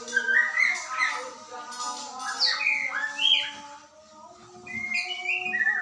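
White-rumped shama (murai batu) singing a varied run of short, clear whistled phrases, with held steady tones beneath.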